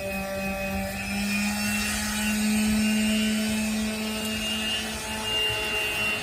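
Electric power sander running with a steady hum, sanding with coarse 80-grit paper.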